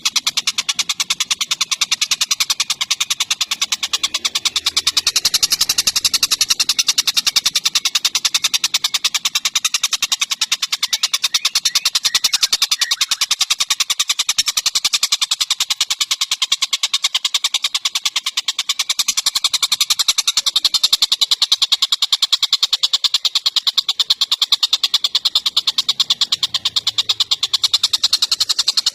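Bird calls: a fast, unbroken run of sharp, rapidly repeated notes, loudest in the high range, with no pause.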